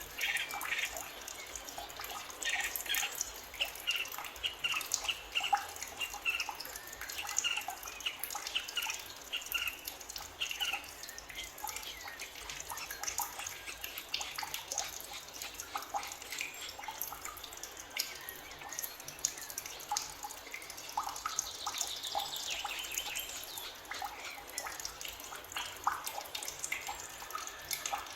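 Forest birds chirping: many short, overlapping calls throughout, with a longer falling call about three-quarters of the way through.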